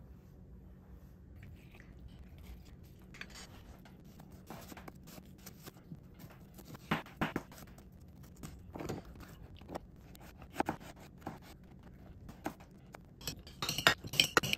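Kitchen food-prep handling: scattered scrapes and sharp knocks of a knife and utensils on a cutting board, faint at first and busier from about seven seconds in, with a denser clatter near the end.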